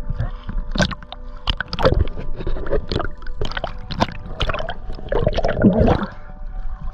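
Seawater sloshing and gurgling around a camera held at the surface, with irregular splashes as it dips under and comes back up.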